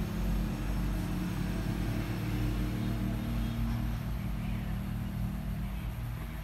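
Steady low background hum, fading slightly toward the end.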